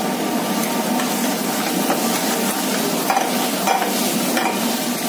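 Pieces frying in a thick masala in a kadhai on a gas burner, sizzling steadily as they are stirred and tossed, with the metal ladle clinking against the pan a few times.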